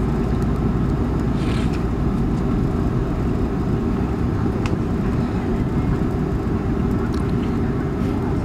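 Airbus A330 cabin noise while the airliner taxis: a steady low rumble from its engines at taxi power and its wheels rolling over the taxiway, with a few faint clicks.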